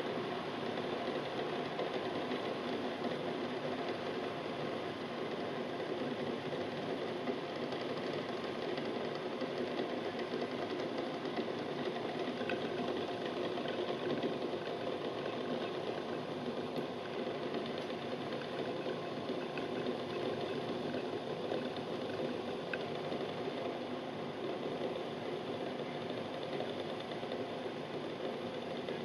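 Eggs boiling in a stainless steel pot: water bubbling steadily, with a fast continuous rattle as the eggs knock against the pot and each other.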